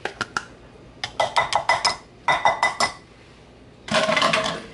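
Kitchenware clinking: two quick runs of light, ringing clinks, like a utensil striking a dish, about a second in and again a little after two seconds, then a brief scraping sound near the end.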